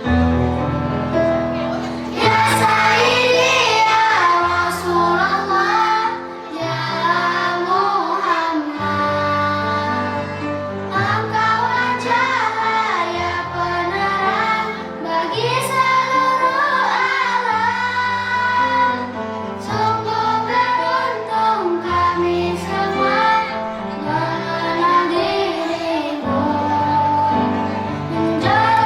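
Children's choir singing an Islamic devotional song over an instrumental backing of held chords.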